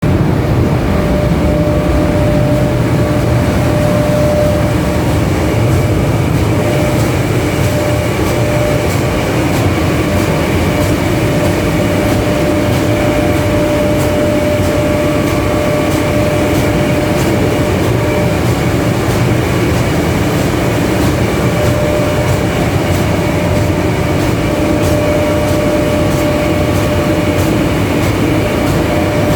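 Ventilation motor-fans of a 3ES5K electric locomotive running with a steady drone and a constant whine, with repeated knocks through it. The knocking is an unsecured roof hatch over the transformer compartment flapping open and shut under the air pressure the fans build inside the body.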